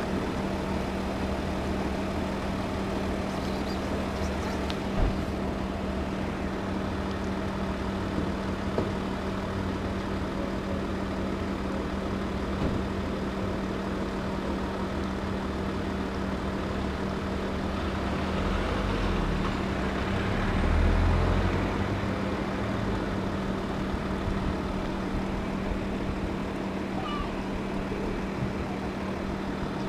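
Steady low motor hum, with a vehicle going by with a low rumble about twenty seconds in, the loudest moment. Close by, cats are eating wet food from a plastic tray, and a cat meows.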